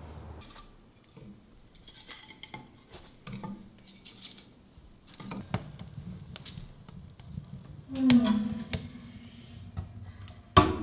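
Wood fire burning in a stove firebox: scattered crackles and pops with a few light clanks, and a short louder sound about eight seconds in.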